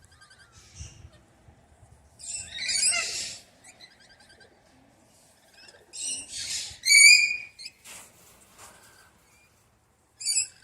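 Wild parrots calling in repeated screechy bursts: one cluster about two seconds in, a louder one around six to seven seconds in, and a short call near the end.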